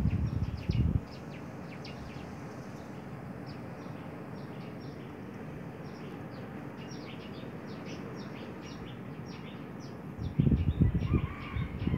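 Steady rushing noise of a 200-litre steel drum of water at the boil over a biomass stove, with short high bird chirps scattered through it. Louder low bumps come in the first second and again near the end.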